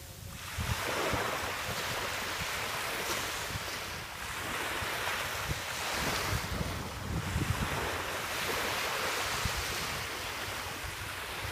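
Ocean surf breaking and washing up a beach, the rush of water swelling and easing every couple of seconds, with wind buffeting the microphone.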